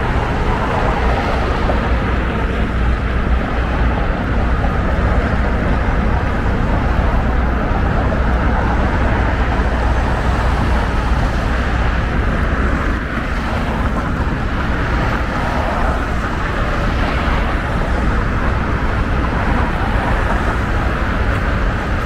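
Steady city street noise: road traffic running past, with a constant low rumble.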